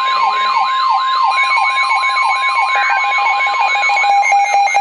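NOAA Weather Radio alert: the steady 1050 Hz warning alarm tone, with weather-radio alarms sounding over it. One is a siren that sweeps upward about three times a second, and a pulsing beep joins about a second in. The steady tone stops shortly after four seconds.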